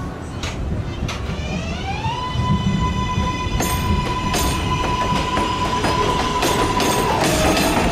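An R188 subway train approaching on elevated track, getting louder. Its electric traction motors whine: the pitch glides up in the first two seconds, holds steady, then drops near the end. Under the whine, steel wheels rumble and click over rail joints, with the clicks coming more often as the train nears.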